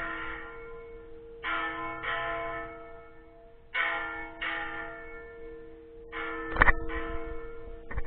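Small church bell (the 'campana menor') ringing, its strokes coming in close pairs about every two and a half seconds, each leaving a long ringing hum. A sharp, loud knock sounds between strokes about six and a half seconds in.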